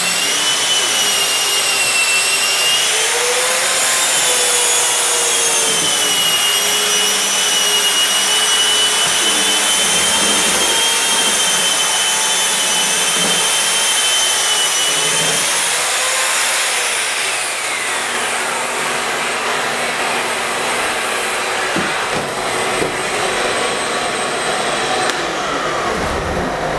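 Power drywall sander with a vacuum attachment running while sanding dried joint compound on sheetrock, its motor giving a steady high whine over the rush of the vacuum. About two-thirds of the way in the whine falls away as the sander spins down, leaving a slightly quieter steady rushing noise.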